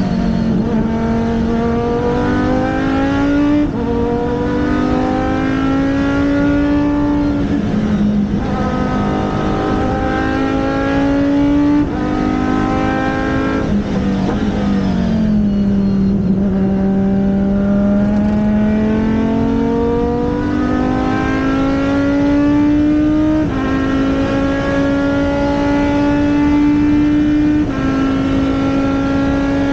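Race car engine running hard on track. The revs climb and then drop sharply at each upshift, several times over. Around the middle the revs fall lower and build back up slowly.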